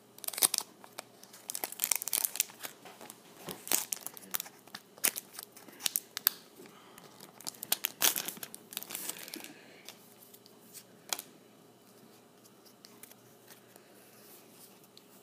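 Foil Magic: The Gathering booster-pack wrapper crinkling and tearing as it is opened, in a run of sharp crackles that dies down after about ten seconds.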